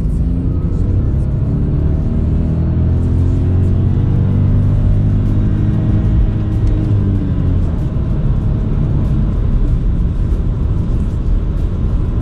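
Renault Clio's 1.0 TCe three-cylinder turbo engine accelerating hard in second gear, its note rising steadily for about seven seconds. It then fades into road noise with no limiter cut-off, the engine simply running out of pull near the top of its rev range.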